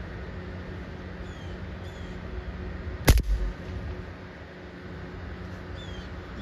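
A single shot from a Brocock BRK Ghost .177 PCP air rifle about three seconds in: one sharp crack with a short low thump after it. A few short bird chirps and a steady low hum sit underneath.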